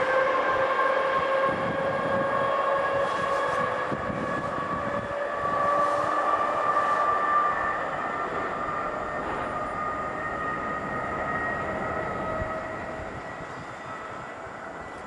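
CFL class 3000 electric locomotive and its double-deck coaches running away down the line: a whine of several steady tones over a rushing noise, slowly sinking in pitch and fading as the train draws off.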